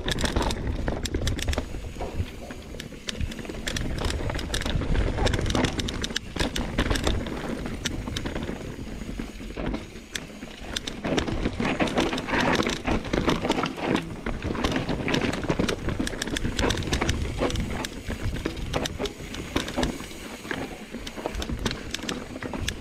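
Mountain bike riding down rough singletrack over roots and rocks: tyres rolling and the bike clattering and rattling with frequent sharp knocks, over a steady low rumble of wind on the handlebar-mounted microphone.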